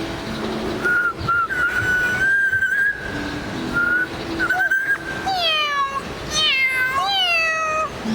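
African grey parrot whistling a long steady note, then a shorter one, followed by several falling, meow-like calls.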